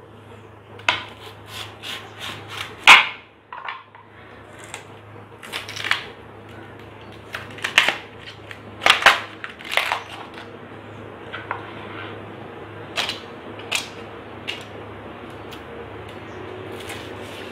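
Crisp irregular cracks and snaps as the outer sheaths of a banana stem are broken and peeled away by hand on a wooden board. The loudest snap comes about three seconds in, with a cluster around nine to ten seconds, and they thin out near the end over a steady low hum.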